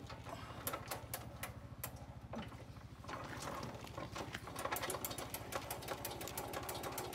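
Irregular clicks and light metal rattles as the rip fence and sliding extension rail of a Craftsman table saw are handled and adjusted, over a steady low hum.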